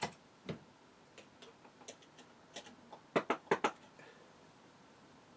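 Light, sharp clicks and taps of hands handling a small model vertical steam engine and its oil can while oiling it, ending in a quick run of four louder clicks about three seconds in.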